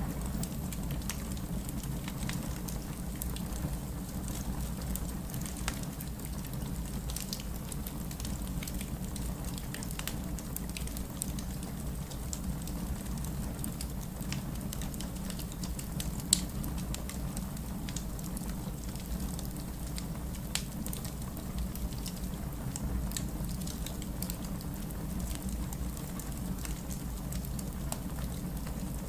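Wood fire burning in a fireplace: a steady low rumble with scattered crackles and small pops, and one sharper pop about two-thirds of the way through.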